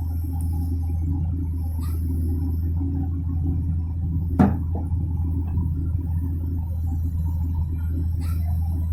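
Komatsu PC200 excavator's diesel engine running with a steady low drone. A single sharp knock comes about four and a half seconds in, with fainter ticks before and after it.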